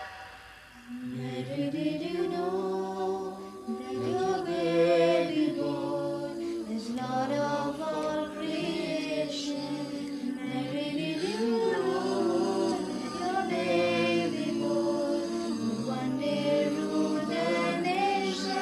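A man and two girls singing a Christmas song together in sustained, held notes. The voices come in about a second in, after a brief pause.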